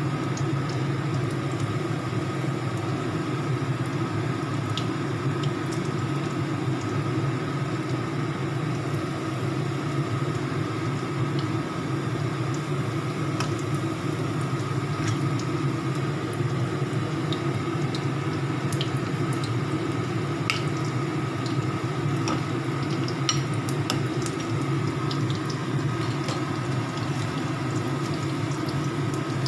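Battered shrimp frying in hot oil in a pan: steady sizzling with scattered small crackles and pops, over a steady low hum.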